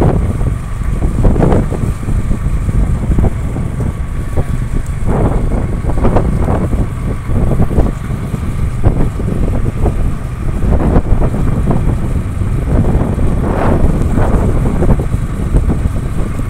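Wind rushing over the microphone of a moving vehicle, over a steady low rumble from the ride.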